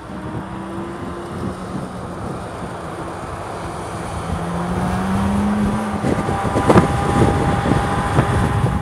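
2023 Chevrolet Corvette Z06's 5.5-litre flat-plane-crank LT6 V8 running on track, its note rising slowly and growing louder, with a few sharp cracks about two-thirds of the way through.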